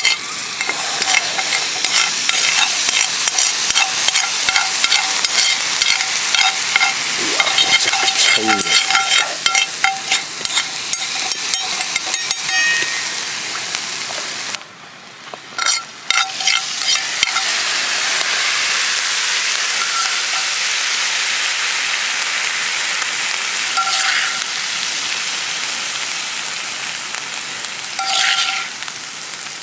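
Steak sizzling and spattering as it sears over a campfire, a steady hiss thick with small crackles. It breaks off briefly about halfway through, then resumes.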